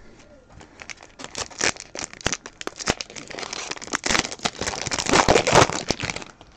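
Foil wrapper of a trading-card pack crinkling as hands work it open: a rapid, irregular run of crackles starting about a second in and growing louder in the second half.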